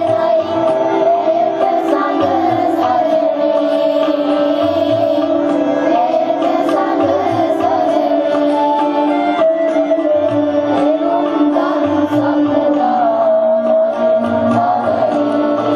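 A choir of schoolchildren singing a song in unison, accompanied by a hand drum keeping a steady beat underneath.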